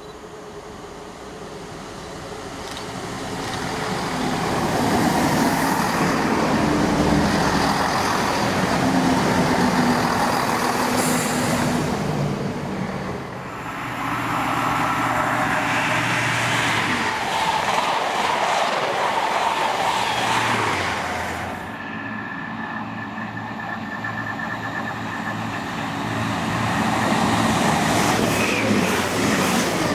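Diesel passenger train passing at speed, with wheel noise and engine hum. The sound builds over the first few seconds, holds loud, and eases and swells again twice as it goes by.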